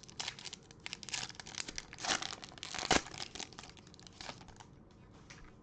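Foil wrapper of a baseball card pack crinkling and tearing as it is opened, in crackly strokes that are loudest about two and three seconds in and die away near the end.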